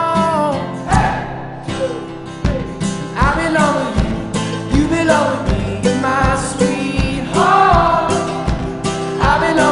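Background song: a solo singer over guitar-led backing with a steady beat.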